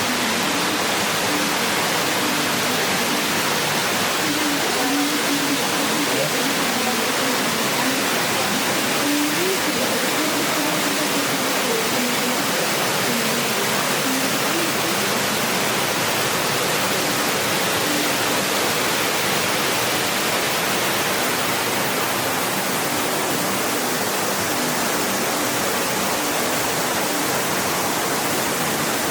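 Steady rush of water, like a small waterfall or cascade, as an even full hiss that holds at one level throughout.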